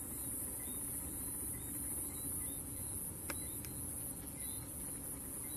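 Night ambience: a steady high-pitched insect trill with short chirps repeating every second or so, over a low, even rumble. Two brief clicks a little past three seconds in.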